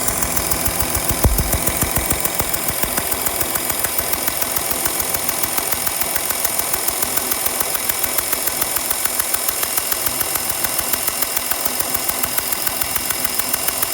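2012 Porsche Cayenne 3.0 V6 diesel engine running with a fast, even ticking pulse, which the owner asks about as a possible exhaust leak. There is a single low thump about a second in.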